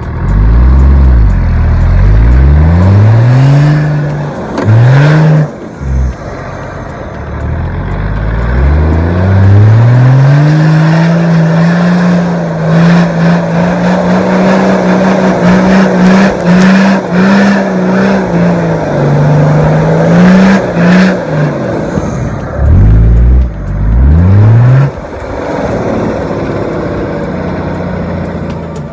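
Off-road 4x4's engine revving hard under load in soft sand, its pitch climbing and dropping several times with gear changes and held high for several seconds in the middle, easing off near the end.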